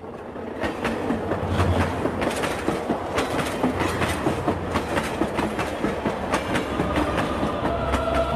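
Rhythmic clattering percussion of a logo intro soundtrack: a quick, even run of clicks over a low rumble, swelling in the first second or two and then holding steady.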